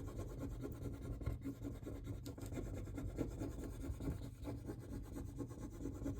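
Paper being handled and rubbed on a journal page: soft, irregular rubbing and scratching with small ticks over a low steady hum.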